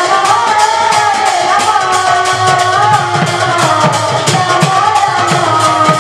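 Sambalpuri balsi kirtan music: a high voice sings a wavering melody over a steady, quick beat of two-headed barrel drums, with sharp bright strokes on the beat.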